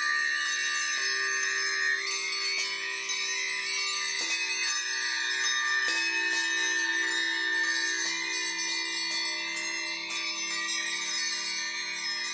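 Two brass hand bells rung over and over, layered over the long wavering hum of ringing singing bowls and a steady high held note, with a fresh strike on a bowl about six seconds in.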